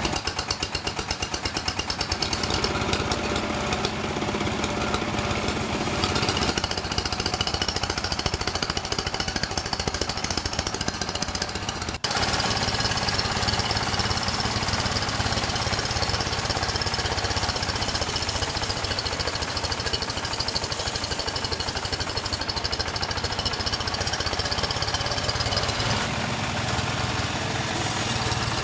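Sawmill machinery running steadily, an engine-driven noise with a fast pulsing; it changes abruptly about twelve seconds in and carries on.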